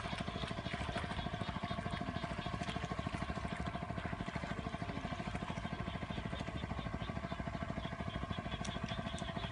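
A small engine running steadily at an even idle, with a fast, regular throbbing beat that does not change.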